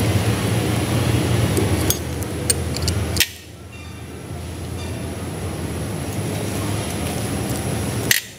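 Socket wrench on an extension undoing the end-cover bolts of a PE inline diesel injection pump: a few light metal clicks and clinks over a steady mechanical hum, which drops away abruptly about three seconds in.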